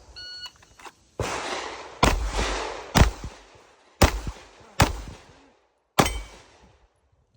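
A shot timer's short electronic beep, then six gunshots at uneven intervals over about five seconds, each with a short echo trailing off: the start and run of a timed competition stage.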